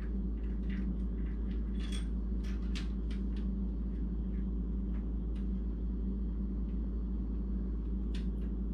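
Scattered light clicks and clinks of hand tools working on the old motor mount bolts in a car's engine bay, over a steady low hum.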